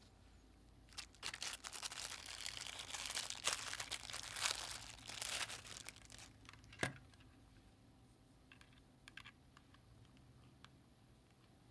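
Packaging crinkling and rustling as it is handled for about five seconds, then one sharp click and a few light taps.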